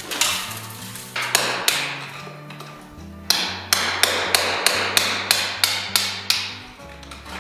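Scraping at a termite-eaten timber beam, then a chisel chopping into the old wood: about ten sharp strikes at roughly three a second. Background music plays under it.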